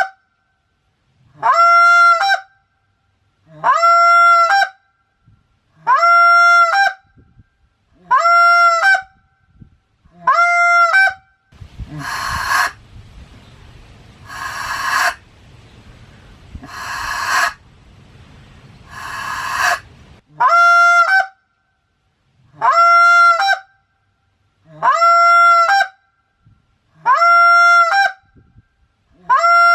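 Goose call blown in a steady series of single honks, about one every two seconds, each a short held note with a quick crack at the end. In the middle of the series come four rougher honks over a low rumble of background noise.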